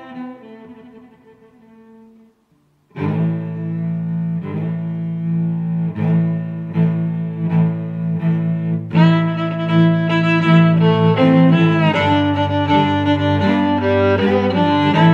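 Background music: one piece fades out, a brief gap about two seconds in, then another piece starts with long sustained low notes, getting fuller with more instruments from about nine seconds in.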